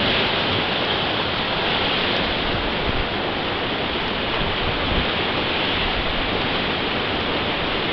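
Whitewater rapids rushing steadily, churning water close around the raft.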